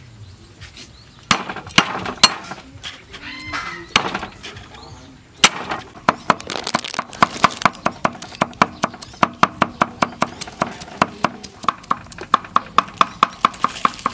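Cleaver chopping garlic on a round wooden chopping block: a few separate heavy strikes on the whole cloves, then a rapid, even run of chops at about five a second as the garlic is minced.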